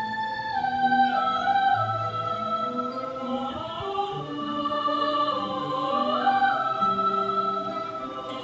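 Music: the choir arrangement of a Mandarin pop ballad used as a rumba dance track, with sustained melodic lines and no sung words here.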